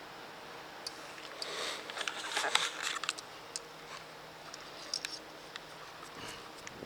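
Handling noise on the camera's microphone: a cluster of clicks and rustles between about one and three seconds in, and a few more clicks later, over a steady hiss.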